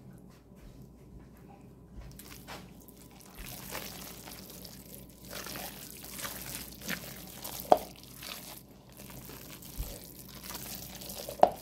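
Spatula stirring and folding egg salad in a bowl: wet squishing and scraping against the side of the bowl. Two sharp knocks stand out, about two-thirds of the way through and again near the end.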